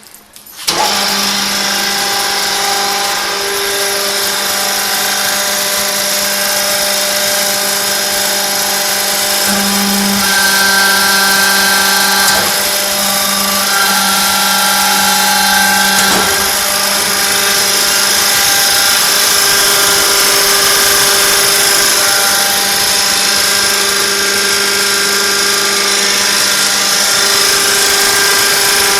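30 kW IGBT induction heater switched on under a second in, running with a loud, steady electrical whine and hum made of many tones over a hiss, its tones shifting now and then as it heats a metal workpiece for forging.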